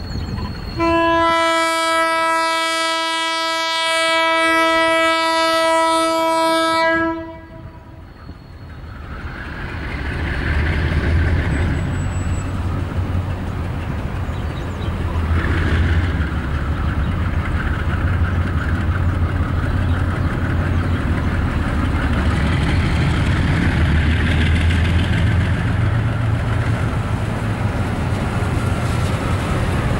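Horn of a General Electric diesel locomotive, a 34 Class at the head of the train, sounding one long blast of about six seconds. The diesel engines of the approaching locomotives then rumble deeply, growing louder over a few seconds and holding steady as the train draws near.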